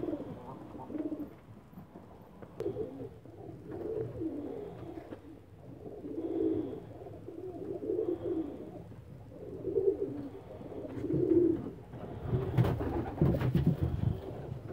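Silver Toghi Iranian high flyer pigeons cooing, low repeated coos every second or two from several birds. A few knocks and rustles come in near the end.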